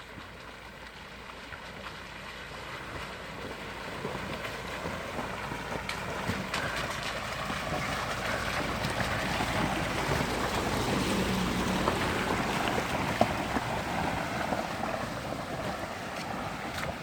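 SsangYong Rexton SUV driving along a rocky creek bed: a wash of noise that grows louder toward the middle and eases off near the end, with scattered sharp knocks.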